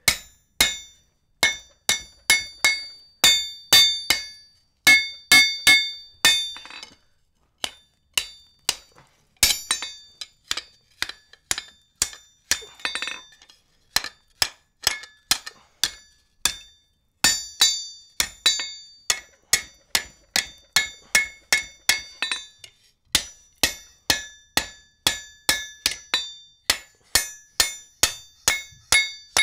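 Blacksmith's hand hammer striking a red-hot iron bar on an anvil in steady blows, about two a second, each with a bright ring from the anvil, broken by a few short pauses. The hot end is being bent and forged into the rolled eye of a strap hinge.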